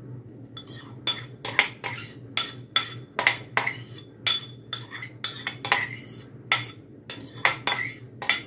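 Metal spoon clinking and scraping against a ceramic bowl as diced avocado is scooped out, a string of sharp ringing clinks about two a second.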